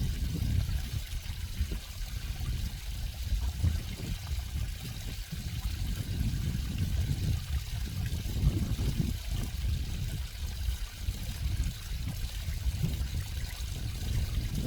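Running water trickling steadily, with most of its sound deep and low and a fainter hiss above.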